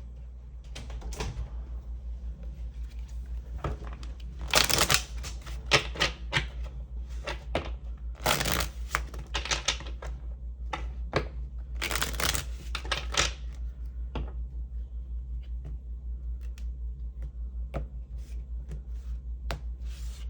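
A deck of tarot cards being shuffled by hand: rapid crackling flutters of the cards, loudest in three spells about four, eight and twelve seconds in, with lighter shuffling between.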